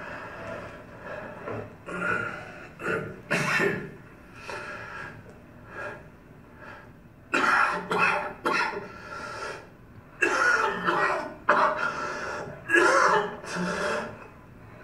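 A man coughing and clearing his throat in repeated short bursts, a few at first and then several clusters in quick succession in the second half.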